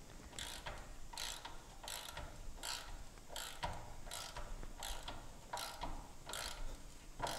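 Ratchet wrench clicking in a steady series of short strokes, about one every three-quarters of a second, as a bolt is tightened down on a car chassis.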